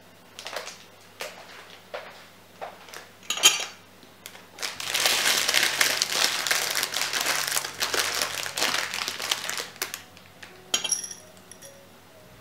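Handling noise: scattered light clicks and taps, then about five seconds of steady crinkling, as of plastic or paper packaging being crumpled or opened. About eleven seconds in come a few short ringing clinks, like glass or a dish being knocked.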